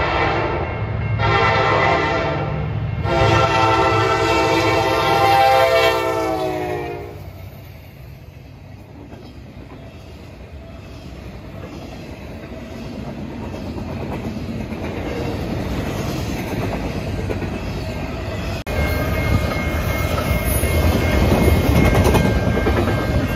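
A freight locomotive's multi-chime air horn sounds in three blasts, the last one long and dropping in pitch as the locomotive passes. Then the wheels and cars of the intermodal train roll by on the rails, growing louder toward the end.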